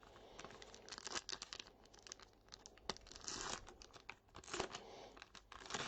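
Plastic wrapper of a trading-card box loader being torn open and crinkled: a scatter of quick crackles, with longer tearing rasps about three and four and a half seconds in.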